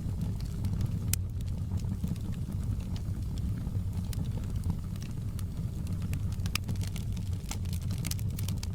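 Fire burning in a fireplace: a steady low rumble with scattered sharp crackles and pops, which come more thickly near the end.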